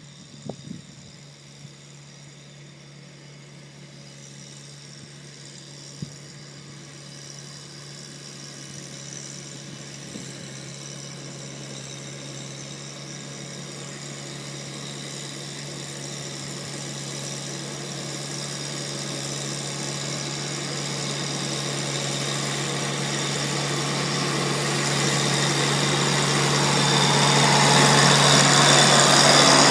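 Kubota mower's engine running at a steady speed and growing steadily louder as the machine comes closer, with a few faint clicks in the first seconds.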